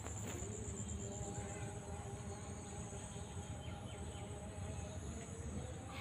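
Steady high-pitched chirring of insects, with a low steady rumble underneath.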